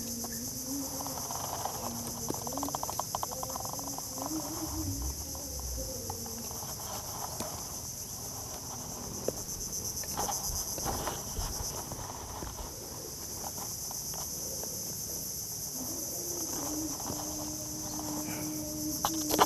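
Steady high-pitched chirring of an insect chorus, crickets, over a faint low wavering tone and a few soft knocks.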